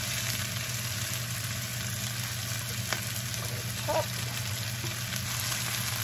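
Spinach, corn, mushrooms and onions sautéing in butter in a non-stick frying pan, a steady sizzling hiss over a low steady hum. A single sharp click about three seconds in.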